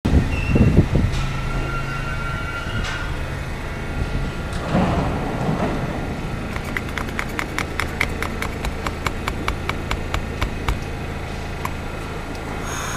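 New York City subway car standing at a station with a steady low hum from its equipment. A few knocks come at the start, and from about halfway a run of evenly spaced sharp clicks, about four a second, lasts some four seconds.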